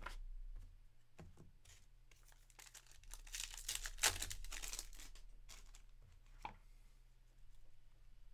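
A foil wrapper on a 2024 Topps Series 1 hobby pack of baseball cards being torn open by hand. The crinkling rip lasts a few seconds and is loudest about four seconds in, with a few light clicks from card handling before and after it.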